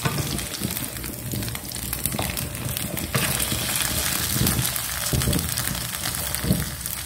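Oil sizzling steadily under shredded potato and carrot cakes frying in a pan. Over it come scrapes and a few light knocks from a wooden spatula and chopsticks as one cake is turned over.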